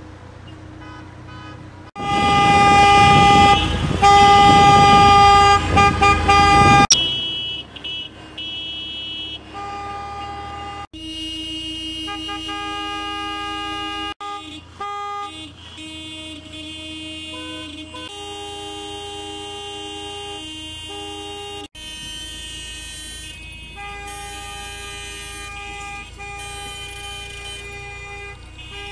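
Many car horns honking together in long, overlapping blasts from a protest car convoy. The loudest stretch comes in the first few seconds, and the sound breaks off abruptly several times.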